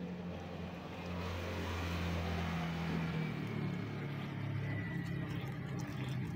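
Low, steady hum of a motor vehicle engine, swelling about a second in and easing off after about three seconds.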